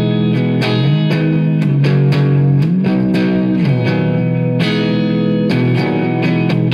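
Red semi-hollow-body electric guitar played live, strummed chords in a steady rhythm with no singing. The low notes slide up and down between chords a few times.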